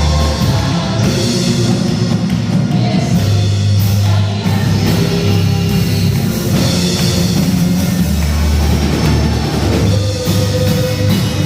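Live worship band playing a rock-style praise song, with drum kit and strong low bass notes and some singing.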